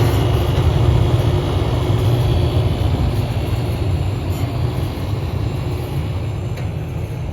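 Large HVAC unit running: a loud, steady low mechanical rumble with a faint hum above it, easing off slightly toward the end.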